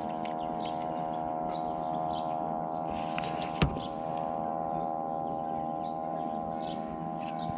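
Steady droning hum of several held tones, with faint bird chirps scattered through it and one sharp click about three and a half seconds in.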